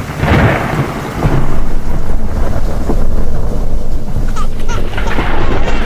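Thunder rumbling over steady heavy rain, loud and continuous.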